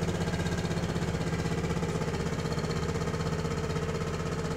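Fishing boat's engine running steadily with a fast, even chug.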